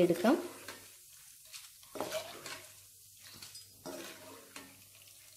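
A metal spatula stirring in a wok of hot oil, with a few scattered scrapes and clinks against the pan and a wire strainer, over a faint sizzle of frying.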